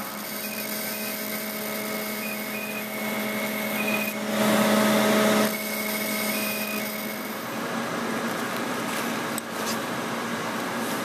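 Fraxel re:pair laser unit running during treatment: a steady machine hum with short high beeps in an irregular pattern. A louder hiss lasts about a second and a half, starting around four seconds in.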